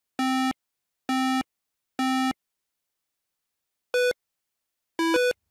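Electronic beeps: three identical low, buzzy beeps about a second apart, then a short higher beep and a quick two-note blip near the end.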